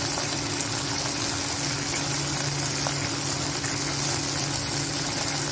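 Steady hum from an induction cooktop's cooling fan, under an even hiss of sliced vegetables frying in oil in the kadhai.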